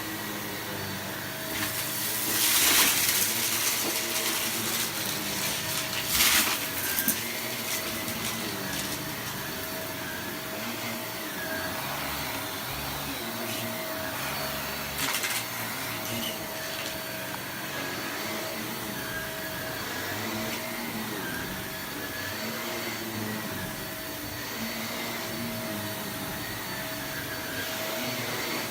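Shark vacuum cleaner running steadily on a rug, its pitch wavering slowly as it works. There are louder bursts about two to three seconds in, again around six seconds, and briefly near fifteen seconds.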